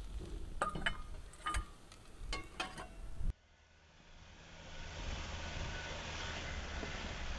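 A metal spoon clinking several times against a steel cooking pot while food is stirred. Then a sudden switch to a pickup truck driving on a dirt track, a 2015 Ford Ranger T6 with a 2.2-litre turbo-diesel, its steady engine and tyre noise swelling over about a second and then holding.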